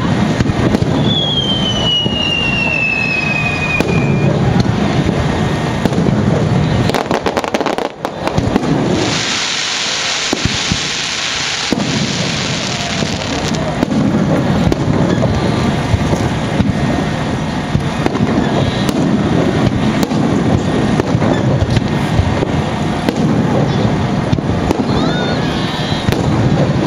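Aerial firework shells bursting in a rapid, continuous barrage. A whistling shell falls in pitch about a second in, and a high hiss lasts for about three seconds near the middle.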